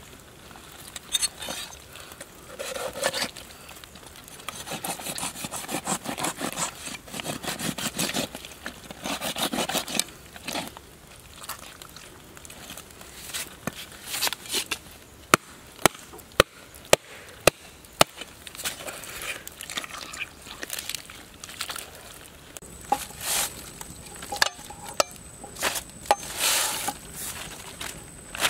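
Wet hands rubbing and scraping over the skin and flesh of a large catfish as it is cleaned. About halfway through comes a run of sharp knife knocks, and near the end more scraping with a few knocks.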